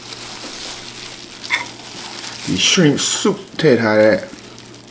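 Clear plastic gloves crinkling and a fork stirring sauce-coated Cajun shrimp and noodles in a glass bowl, a wet, crackly noise. In the second half a man's voice makes short sounds over it.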